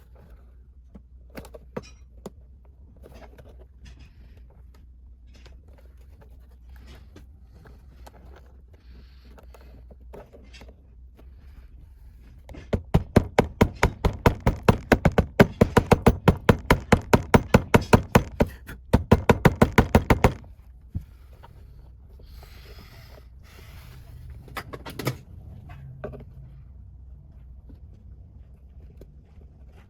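Workshop handling noises with scattered knocks. About twelve seconds in, a run of rapid, sharp, evenly spaced clicks starts and lasts about eight seconds, followed by a few short scrapes.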